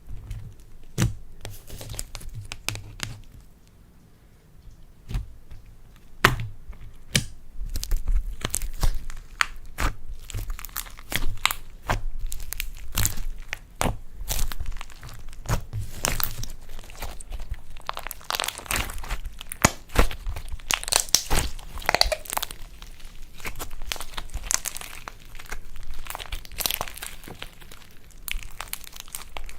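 Slime being kneaded and stretched by hand, giving a stream of sharp crackles and pops, sparse at first and dense from about six seconds in.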